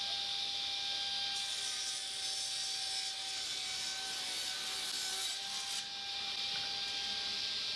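Power saw running with a steady whine and cutting through a glued-up hardwood panel into strips. The cut starts about a second and a half in and ends near six seconds, then the saw keeps running.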